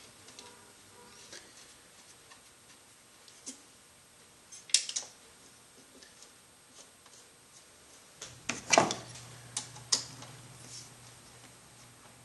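Hand tools and bolts clinking against the aluminium intake side of a Volvo 2.4T engine as retaining bolts are started and a ratchet on an extension is fitted: scattered light metallic clicks, with sharper knocks about five and nine seconds in and a few clicks just after.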